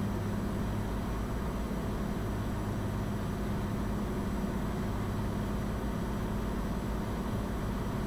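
Cirrus SR20 single-engine piston engine and propeller running steadily at approach power, a constant even drone with no change in pitch or level.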